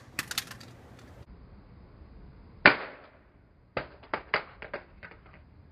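An open flip phone dropped from about six feet clatters with a few small clicks just after landing. About two and a half seconds later comes one loud sharp knock, then a quick run of smaller plastic clicks and knocks.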